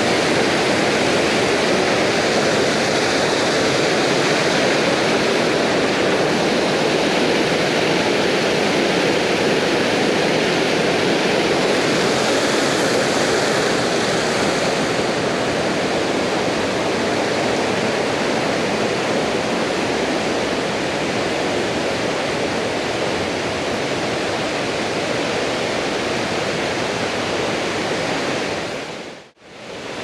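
Mountain stream running high, rushing over boulders and small cascades in a steady roar of water. It cuts off abruptly for a moment near the end.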